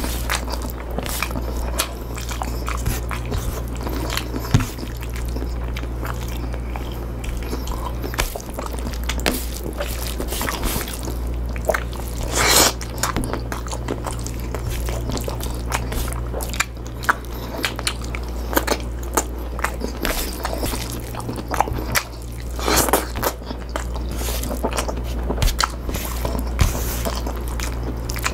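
Close-miked chewing and biting of pinakbet, a Filipino vegetable stew: wet mouth sounds and small clicks, with a couple of louder bites about twelve seconds in and again near the end. A steady low hum sits underneath.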